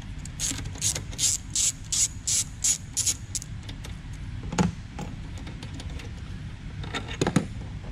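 Socket ratchet clicking in a steady run of strokes, about three a second, as a 10 mm bolt is loosened and backed out. A couple of separate knocks follow later, as the tool and bolt are handled.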